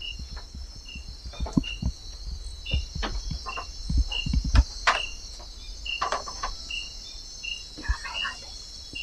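Night insects calling: a steady high-pitched buzz with a short chirp repeating a little more than once a second. Scattered knocks and rustles from people moving close by.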